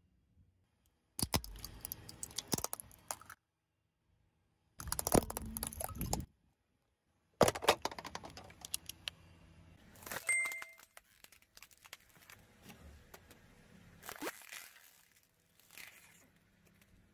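A car tyre rolling slowly over small objects and crushing them: sharp cracks followed by crackling and crunching, in several short takes cut apart by dead silence.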